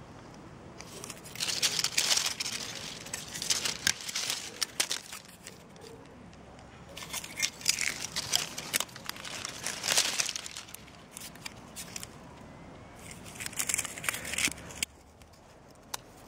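Dry, frost-killed citrus leaves and twigs crackling and crinkling in three bursts of dense sharp snaps, with quieter pauses between them.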